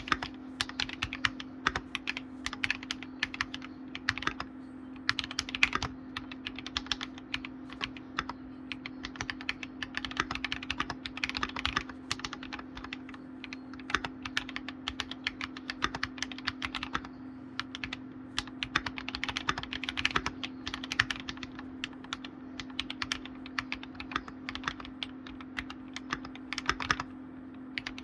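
Typing on a computer keyboard: quick runs of key clicks broken by short pauses every few seconds, over a steady low hum.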